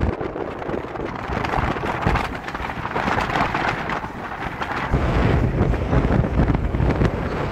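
Wind buffeting the microphone on the deck of a moving boat, over a steady rushing hiss of water. The low rumble of the buffeting drops away at the start and comes back about five seconds in.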